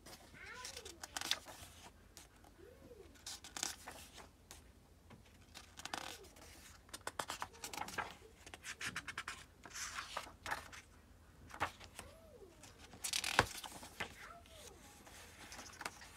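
Pages of a hardcover book being turned one after another, the paper rustling and flapping in short bursts every second or two, with a sharper snap of a page about thirteen seconds in.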